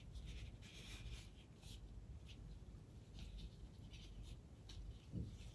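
Faint rustling and light scratching as a plastic container and tights holding spiderlings are handled, with one soft knock about five seconds in.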